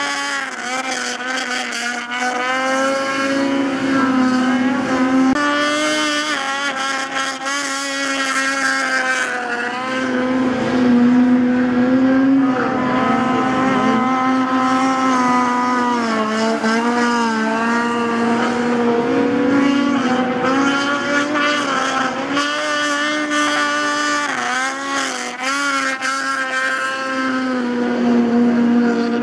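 Racing snowmobile engines running at high revs while the sleds skim across open water. The pitch rises and falls over and over as the riders work the throttle.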